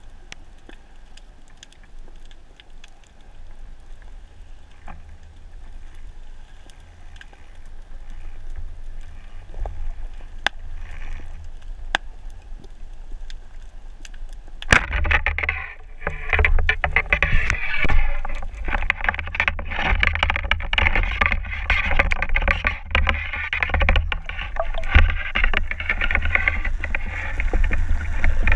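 Muffled underwater sound through a GoPro's waterproof housing. First a faint hiss with scattered clicks; then, about halfway through, a sharp snap as the Demka Vector 105 band-powered speargun fires. Loud, continuous water rushing and bubbling follows as the diver moves in on the speared catch.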